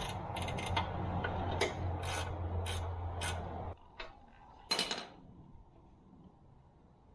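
A hand-held power tool runs steadily for a few seconds, backing out the retaining bolt on a backhoe bucket pin, with sharp metal clicks about twice a second. It stops suddenly, and a single metal clink follows about a second later.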